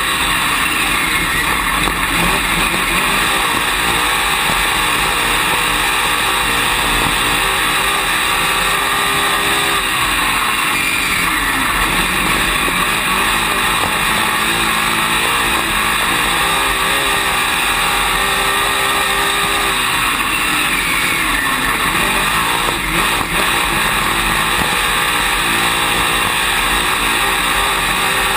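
Dirt late model race car's V8 engine running hard at racing speed, heard from inside the cockpit. The engine note dips and climbs again every several seconds as the car backs off into the turns and gets back on the throttle down the straights.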